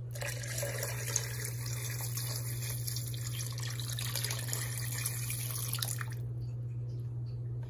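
Filtered water poured from a clear pitcher into a stainless steel stockpot, splashing onto raw chicken feet; the pour stops about six seconds in.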